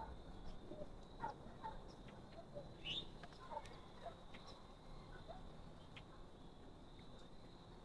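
Faint outdoor ambience of scattered short animal calls and chirps, one brief rising chirp about three seconds in, over a faint steady high tone.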